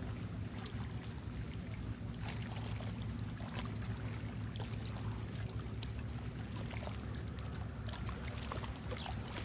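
Small lake waves lapping and trickling against the bank, with scattered little splashes, over a steady low drone.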